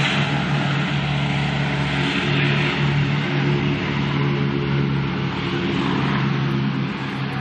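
Boeing B-17 bomber's four Wright Cyclone radial engines at takeoff power, a loud steady drone.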